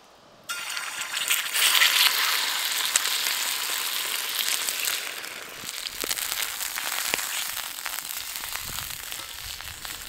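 Food landing in a hot, oiled pan over a campfire: a sudden loud sizzle about half a second in that swells over the next second or so, then settles into a steady frying hiss with crackles that slowly eases.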